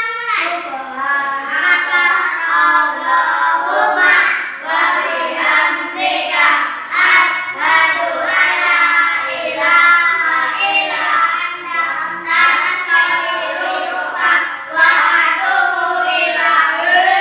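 A group of young children singing a song together, their voices running on continuously with no pause.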